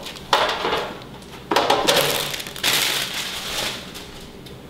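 Baking paper rustling and crinkling as it is handled and laid onto a baking sheet, in three bursts: a short one just after the start, another about a second and a half in, and a longer one after the middle.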